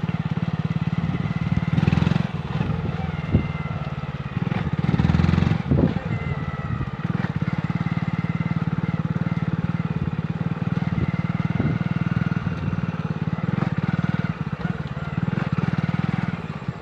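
Motorcycle engine running steadily at low speed, heard from on the moving bike, swelling louder briefly a couple of times.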